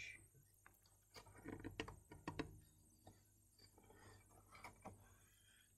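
Faint paper rustling and small clicks as a picture book's page is handled and turned, in two short spells.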